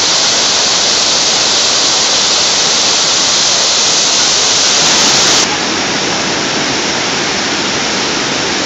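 Water pouring down a large illuminated fountain's cascades and jets into its basin: a loud, steady rush. About five and a half seconds in the sound abruptly becomes less hissy and slightly quieter.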